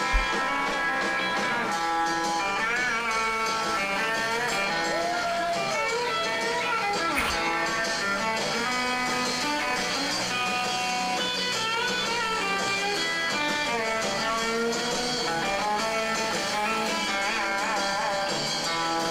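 Guitar-led background music with bent notes throughout. A short low thump sounds right at the start.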